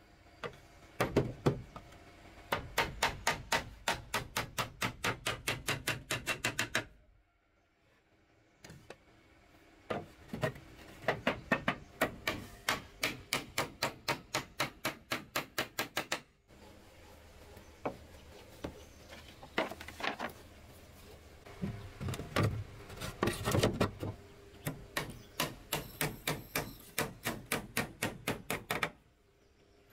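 Claw hammer driving nails into wooden planks: runs of quick, sharp blows, about three or four a second, in three bursts with short pauses between.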